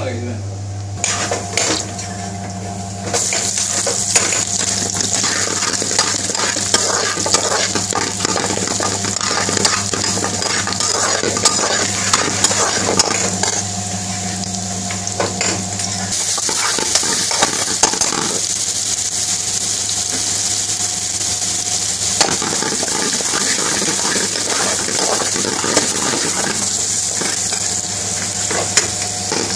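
Chopped garlic frying in hot oil in a stainless-steel karahi. It sizzles steadily, and the sizzle jumps up sharply about three seconds in, while a metal spoon clinks and scrapes against the pan as it stirs.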